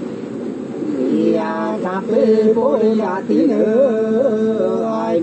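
Hát sli, the Nùng folk song, sung unaccompanied by women's voices. After a short lull it resumes about a second in, with long held notes decorated by quick wavering turns.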